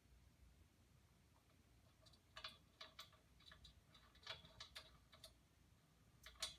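Faint, irregular metallic clicks and clinks of small hardware and rack parts being handled and fitted, some with a short ring, in a cluster that starts about two seconds in.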